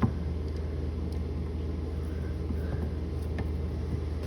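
A small screwdriver working a screw into a light switch plate gives one sharp click right at the start and a few faint clicks after it, over a steady low rumble.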